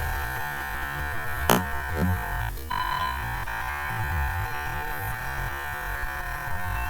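A cartoon bunny-hop bounce sound effect slowed down drastically, stretched into a steady, synth-like drone. A sharp click comes about one and a half seconds in, with a fainter one just after.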